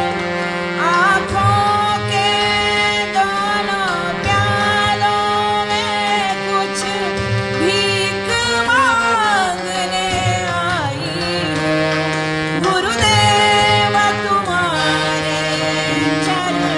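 Devotional bhajan: a woman singing a wavering, ornamented melody over steady held harmonium-like tones, with a hand drum keeping a regular beat.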